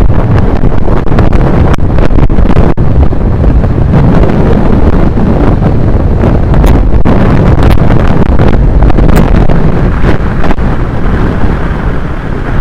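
Heavy wind buffeting the microphone of a camera on a road bike descending at speed: a loud, steady rumble with a few sharp clicks.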